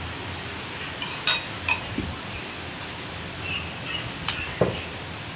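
Spoons clinking against bowls of bakso a few separate times, with a sharp clink about a second in, another shortly after, and one more near the end, over a steady background hiss.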